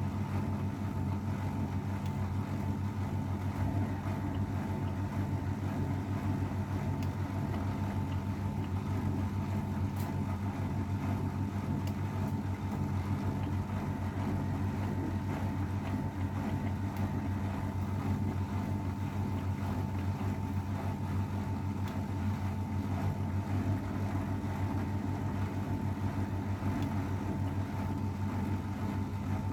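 AEG Öko-Lavamat 693 washing machine running without a break, a steady motor hum with a constant higher whine.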